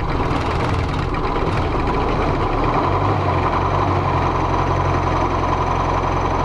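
ZIL Bychok's four-cylinder diesel engine running just after new injector nozzles were fitted and air was bled from the fuel lines. Its note changes about two and a half seconds in and then holds. The engine won't hold a proper idle, and the owner doesn't know why.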